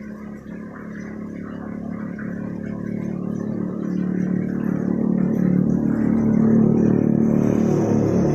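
A motor running with a steady low hum, growing louder over the first six seconds and then holding.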